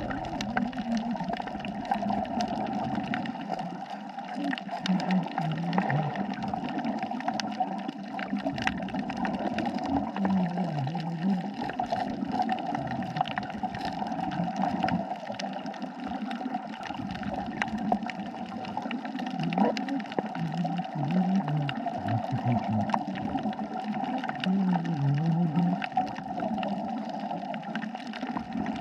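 Underwater sound on a coral reef: a steady hiss full of fine crackling clicks, with low wavering gurgles coming back every five seconds or so.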